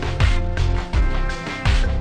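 Music with a steady low beat, about one beat every three-quarters of a second, under sustained notes.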